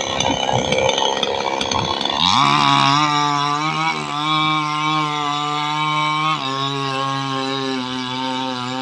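Two-stroke chainsaw cutting through wood, its note rough and unsteady for about two seconds. Then it revs up quickly and runs at a steady high pitch, dropping a little about six seconds in.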